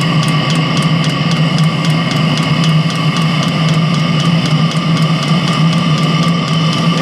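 Chinese diesel heater roaring up to life on a one-third engine oil, two-thirds diesel blend: a steady combustion-fan hum with a quick, even ticking of the fuel dosing pump, about five ticks a second, which fades out about three seconds in.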